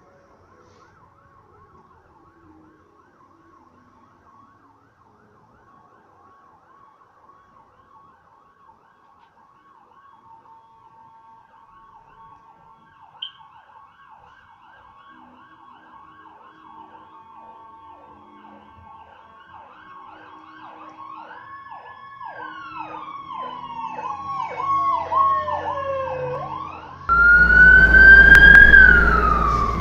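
Ambulance siren approaching from far off, switching between a fast warble and slower sweeping wails and growing steadily louder. Near the end a much louder siren wail rises and falls over heavy rumbling noise.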